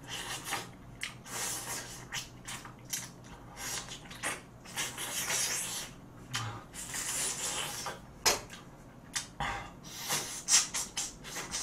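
Close-up mouth sounds of eating meat off a pork bone: chewing, lip smacking and sucking, heard as irregular wet clicks and smacks, with a few sharper ones in the second half.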